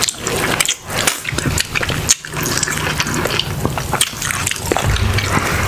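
Close-miked wet clicking and squelching of shrimp and shellfish being peeled and eaten. A lemon wedge is squeezed over the seafood.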